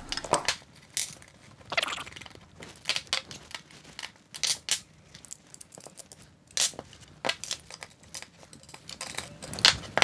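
Irregular clicks, clinks and taps of a machined aluminium block and small metal parts being handled and turned over by hand on a wooden workbench, with a few sharper knocks.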